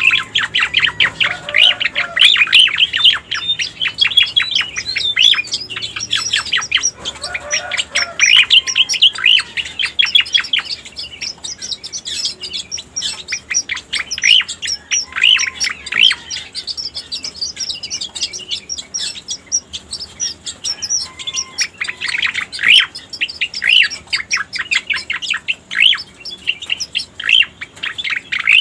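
Cica koreng bird song played as a lure (masteran) recording: long runs of rapid, high chirps, broken by short pauses, with the odd lower whistled note.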